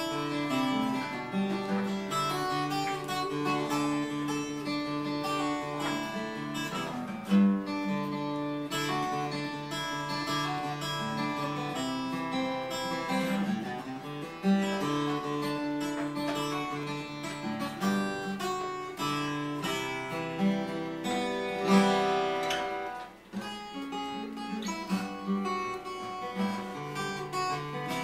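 Acoustic guitar played solo, unaccompanied instrumental noodling: picked notes and chords ringing into one another, with a few louder strummed accents.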